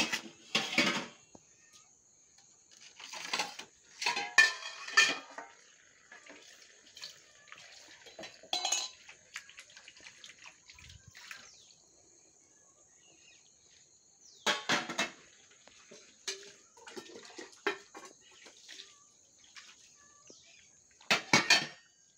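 A cat eating from a bowl, the bowl clinking and scraping on a concrete floor in several short bursts a few seconds apart, with quiet between.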